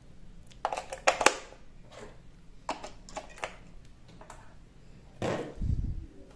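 AA batteries being fitted into a plastic toy train's battery compartment: a series of sharp plastic-and-metal clicks and rattles, with a louder, duller knock of handling about five seconds in.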